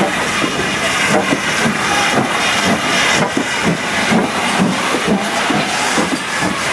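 Two steam locomotives, an LMS Black Five 4-6-0 and a GWR 5100 Class Prairie tank, moving slowly past coupled together, giving off a steady hiss of steam with repeated knocks and clanks from the running gear.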